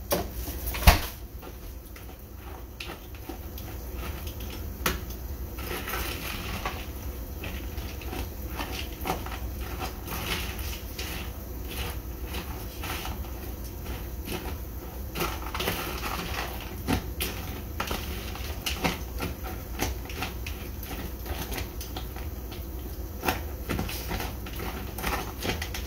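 Kitchen clatter: scattered clicks and knocks of cookware and utensils, with one sharp knock about a second in, over a steady low hum.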